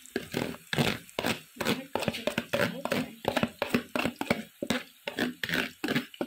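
Stainless slotted spoon scraping crab fat out of a plastic bowl in quick, repeated strokes, about three a second.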